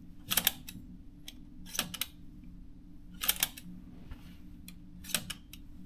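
Sharp mechanical clicks from the carriage controls of a Brother JP-chassis portable typewriter as they are worked by hand. Four louder clicks come about a second and a half apart, with lighter ticks between them.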